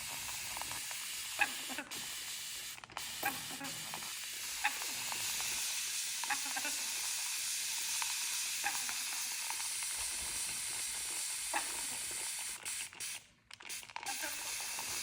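Steady hiss, broken by a few brief dropouts, with a handful of short chirps from an orange-winged Amazon parrot.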